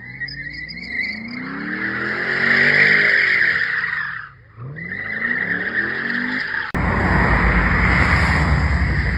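Loud sports car engine revving, its pitch rising and falling twice with a brief lift between. About two-thirds of the way through, a sudden loud rushing noise takes over.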